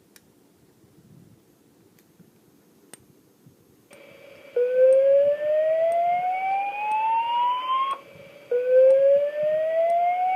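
Fire alarm evacuation signal in the slow-whoop pattern: a tone sweeping steadily upward in pitch over about three and a half seconds, sounding twice. The first whoop starts about four and a half seconds in, after near quiet.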